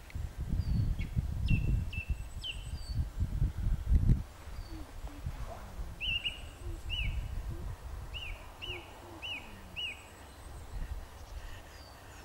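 Small birds calling: thin high whistles throughout, and a run of short, sharp chirps in the second half. A low rumbling noise lies under them, loudest in the first four seconds.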